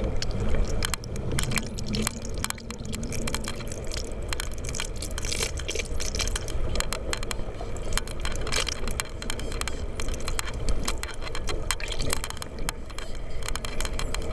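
Underwater among a pod of spinner dolphins: dense trains of sharp clicks, bunching into quick buzzes a few times, over a steady low rumble of water flow.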